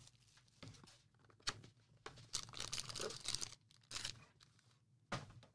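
A sealed trading-card box and its wrapper being torn open by hand: a few faint tearing and crinkling rustles, with a denser run of them about two to three and a half seconds in.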